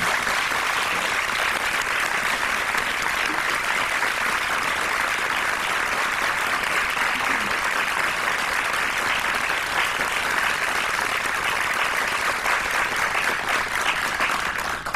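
Audience applauding: many hands clapping in a steady, dense patter that cuts off at the very end.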